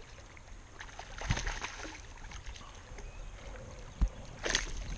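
A hooked smallmouth bass splashing at the surface beside a kayak as it is brought in by hand, with a sharp knock about four seconds in.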